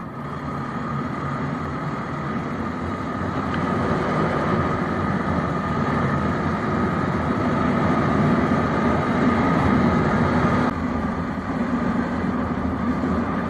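Bajaj Pulsar NS200 motorcycle riding at cruising speed, its single-cylinder engine running steadily under road and wind noise. The sound changes abruptly about ten seconds in, where one onboard clip cuts to another.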